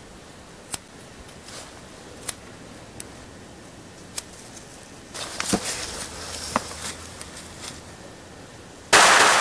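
A few faint clicks and some rustling while a firecracker is set among plastic army men in dirt, then near the end a sudden loud bang of the firecracker going off.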